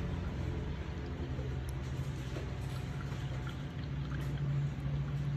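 A steady low hum and hiss, with a few faint clicks from steel toenail nippers cutting at the edge of a big toenail.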